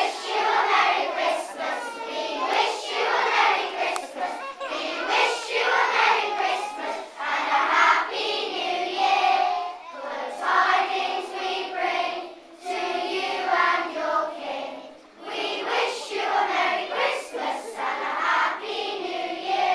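A group of children singing together as a choir, continuously and without pause.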